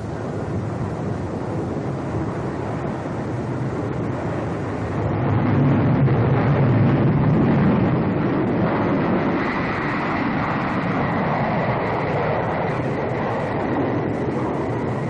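The jet engines of a Boeing B-47 Stratojet, a six-engine turbojet bomber, running loud. The noise swells about five seconds in, and a high steady whine joins it from about nine seconds on.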